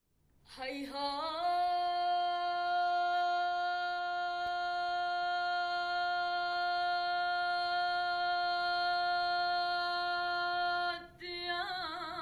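A woman's voice singing without accompaniment. She slides up into one long held note of about ten seconds, then breaks off briefly near the end and starts a new note with a wide vibrato.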